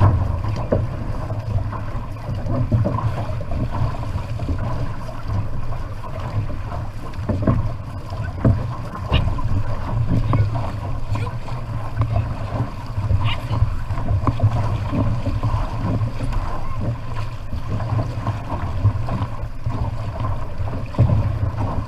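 Wind buffeting the action camera's microphone in a steady low rumble, over water splashing along a paddled outrigger canoe, with short irregular splashes from the paddle strokes.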